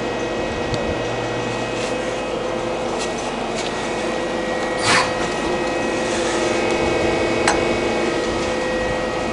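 Mazak Quick Turn QT-6T CNC lathe running a machining cycle: a steady hum with several steady tones. A few short sharp clicks come through it, the loudest about five seconds in.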